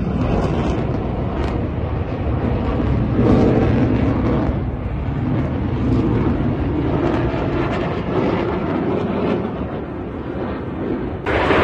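Military jet flying overhead: a steady, low-heavy jet engine noise that swells and eases over several seconds. The noise steps up abruptly, louder and hissier, near the end.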